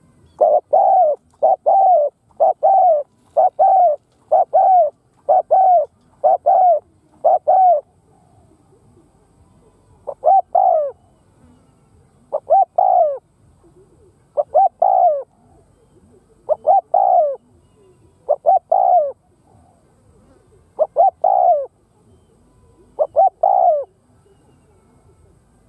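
Spotted dove cooing: a quick, even run of about ten coos, then, from about ten seconds in, double coos roughly every two seconds. This is the decoy's coo used to provoke wild spotted doves.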